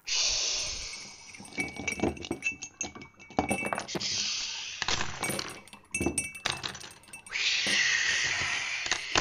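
Logo-intro sound effects: a noisy whoosh at the start and another about seven seconds in, with a run of sharp clinks and glass-shattering hits between them.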